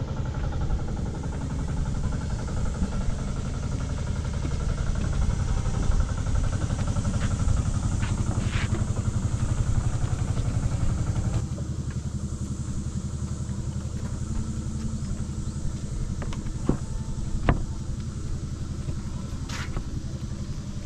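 An engine running steadily with a low drone, its sound changing abruptly about halfway through as the upper hiss drops away. A few short sharp clicks sound over it.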